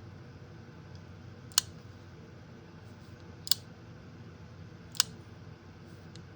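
Antique handgun's action clicking: three sharp metallic clicks spaced about one and a half to two seconds apart, with a fainter click near the end, as the mechanism is worked.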